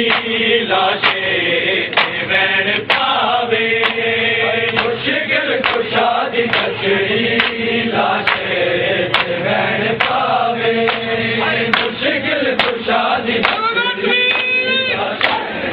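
Voices chanting a noha in unison, with sharp hand slaps on bare chests (matam) falling in time a little more than once a second. A high voice glides up near the end.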